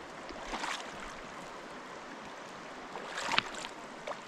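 Shallow river water running steadily, with two sloshing splashes of feet wading through it, about half a second in and again a little past three seconds.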